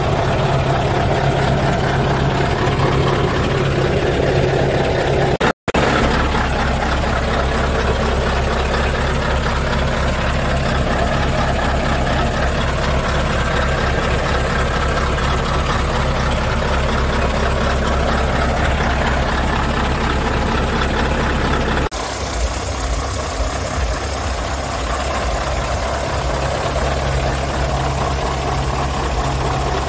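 Scania R144's 14-litre V8 diesel engine idling steadily. The sound cuts out for an instant about five and a half seconds in, and its tone shifts slightly a little over 20 seconds in.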